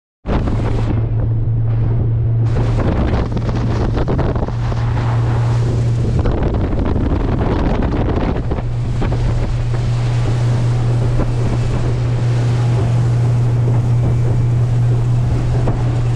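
Motorboat under way: a steady engine hum under heavy wind buffeting the microphone and the rush of water.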